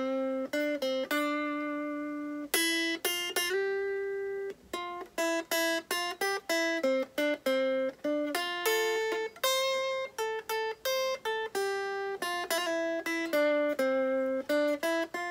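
Clean-toned electric guitar playing a single-note lead line in D minor, plucked one note at a time: a run of short, clipped notes with a few held for about a second.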